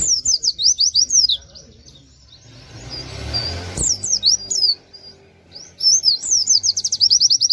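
Pleci (white-eye) singing in three loud bursts of quick, high, downward-sweeping notes. The last burst speeds into a very fast rattling trill, the 'sambung bren' style the title names.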